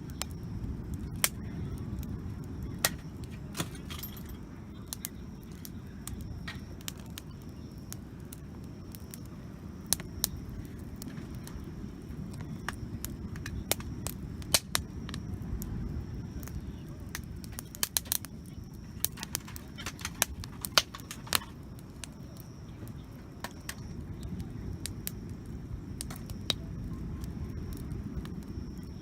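Wood campfire crackling, with sharp irregular pops, over a steady low rumble.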